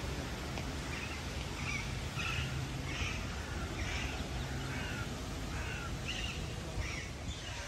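Birds calling in the courtyard trees: a run of short, harsh calls, about one or two a second, over a steady low hum.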